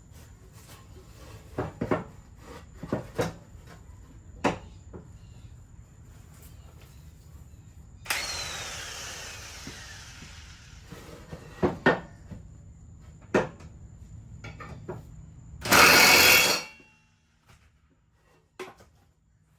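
Scattered sharp knocks and clanks of tools at work, over a low steady hum. About eight seconds in comes a hiss lasting a couple of seconds, and near the end a short, loud burst of a power tool, the loudest sound here.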